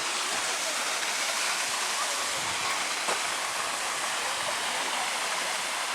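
Steady hiss of falling water.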